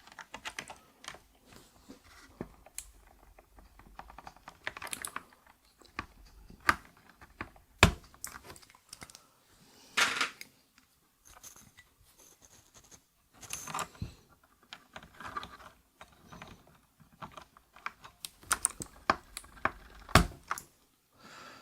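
Irregular small plastic clicks and scrapes of parts being pried from and pressed into an 8BitDo Retro Mechanical Keyboard, with a few louder snaps.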